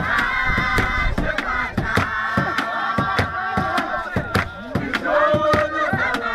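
A group of high voices singing and chanting a Zulu ingoma dance song together, with sharp percussive hits about two or three times a second.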